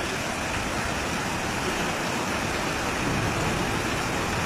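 Steady, even rushing of storm water, like a flash-flood torrent or heavy rain.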